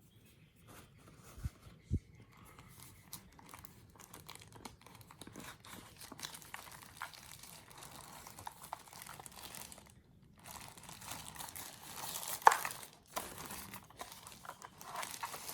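Packaging being unwrapped by hand: continuous crinkling and rustling with small crackles, two soft thumps near the start and a sharp knock about three quarters of the way through.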